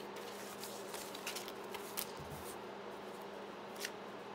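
Old paper sheets being handled and turned over, with a couple of short crisp rustles about two seconds in and again near the end, over a steady low hum.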